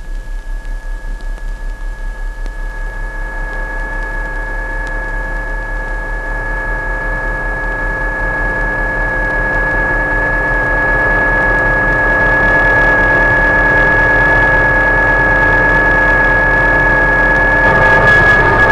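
Electronic science-fiction sound effect of a vehicle speeding closer across a desert: a hum with several steady held tones, high and middle, over a low throb, growing steadily louder as it nears. The throb pulses quickly at first and smooths out.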